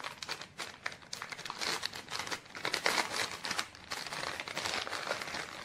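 Clear plastic packaging bag crinkling and crackling in the hands as it is opened and a pair of gloves is pulled out of it: a dense, continuous run of sharp crackles.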